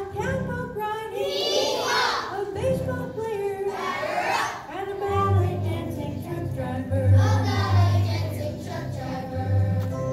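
Young children singing a song together over recorded backing music with a bass line.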